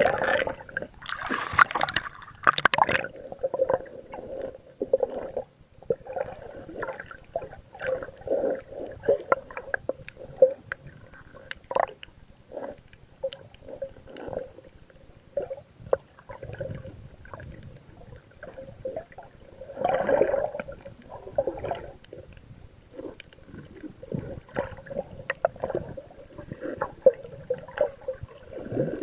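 Underwater sound picked up by a camera in a waterproof case held beneath the sea, muffled by the case: an irregular run of gurgling sloshes and small knocks. It is louder about two seconds in and again about twenty seconds in.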